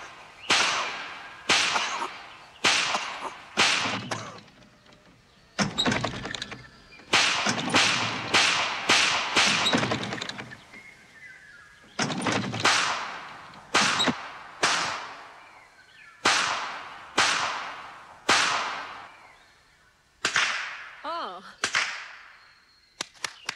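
Rapid pistol shots at a shooting range: about twenty sharp cracks, each ringing out in a long echo, fired in strings of several, roughly one to two a second, with short pauses between. Near the end a wavering whine follows a shot.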